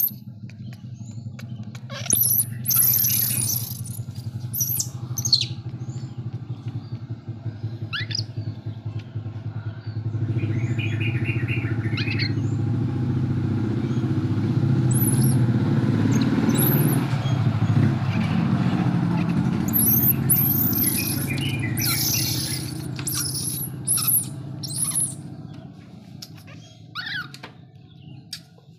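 A baby macaque gives repeated short, very high-pitched squeals over the low drone of a motor vehicle engine. The engine sound swells from about ten seconds in and fades near the end.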